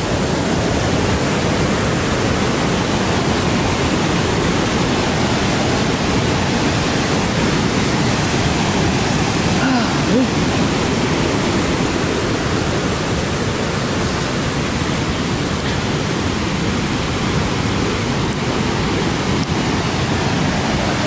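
Steady rushing of a river in flood, swollen with rain and snowmelt, its whitewater rapids running over the banks.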